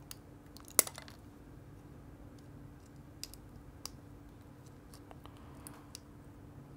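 Pliers snapping small pieces of broken glass off a cracked camera LCD screen: one sharp loud snap about a second in, then a few fainter clicks.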